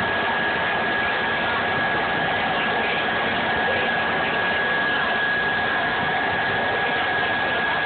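Electric air blower inflating a water walking ball: a steady rushing of air with a constant high whine.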